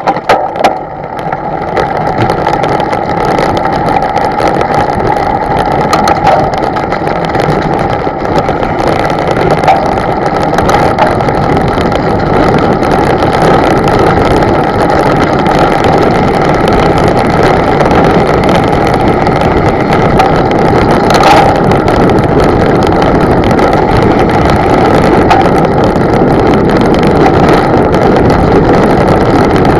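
A boat's motor running steadily after building up over the first couple of seconds, with rushing water and wind noise.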